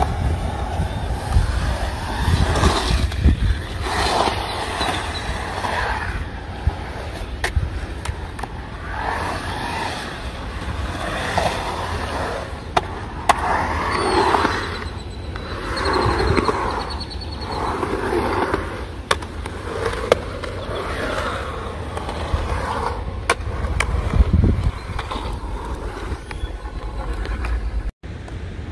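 Skateboard wheels rolling and carving on a concrete skatepark bowl, the rolling noise swelling and fading about every two seconds, with occasional sharp clicks over a steady low rumble.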